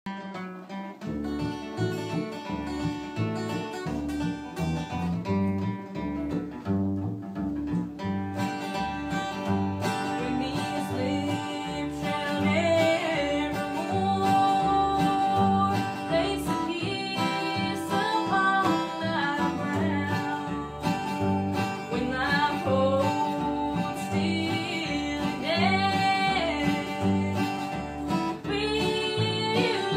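Acoustic guitar and upright bass playing a bluegrass song, with singing joining about twelve seconds in.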